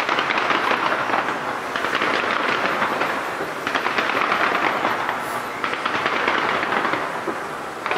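Fireworks launched from the sides of the Taipei 101 skyscraper, crackling in a dense, rapid barrage that swells and eases about every two seconds.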